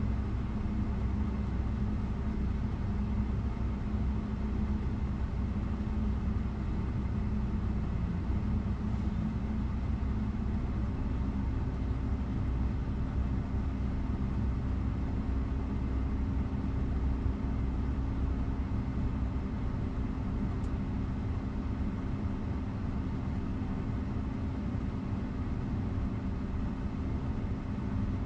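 Steady mechanical hum and low rumble from a parked Tesla's climate control, its cabin fan and air-conditioning running in Dog Mode to hold the cabin at about 70 °F; the pitch of the hum shifts slightly about ten seconds in.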